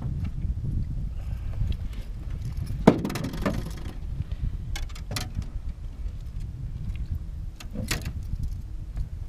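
Wind rumbling on the microphone while a landed largemouth bass is handled in a landing net aboard an aluminium jon boat. About three seconds in there is one sharp knock with a short ring, the loudest sound, followed by scattered clicks and rattles.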